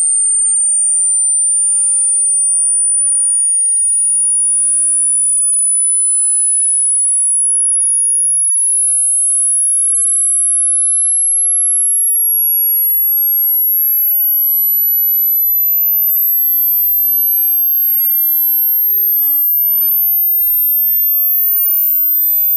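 Pure sine test tone of a hearing test, very high-pitched and steady in loudness, stepping up in pitch about every second and a half. Tones this high go out of hearing as ears age, which is what the test checks.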